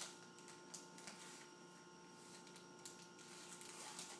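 Near silence: room tone with a faint steady hum and a few faint rustles and clicks scattered through it.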